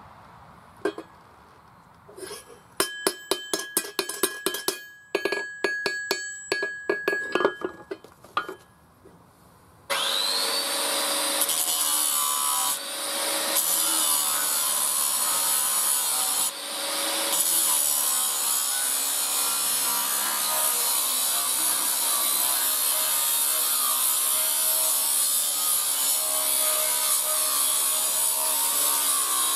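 Hammer strikes on a steel axe head on the anvil, quick runs of ringing blows for several seconds. Then, about ten seconds in, an angle grinder starts suddenly with a rising whine and runs on steadily, grinding the forged steel axe head, easing off briefly twice.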